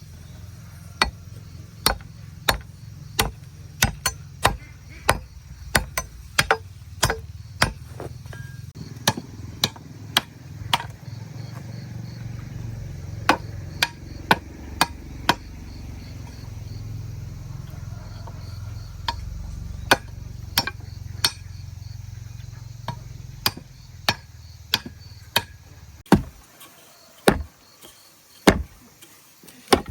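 A machete chopping sugarcane with sharp, repeated blows, about one to two a second. A low rumble runs under the blows and stops about 26 seconds in.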